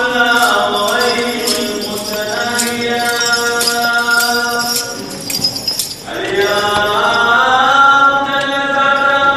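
Voices chanting a slow liturgical hymn in long, held notes. The singing breaks off briefly about halfway through, then resumes with rising notes. A regular high ticking runs under the first half.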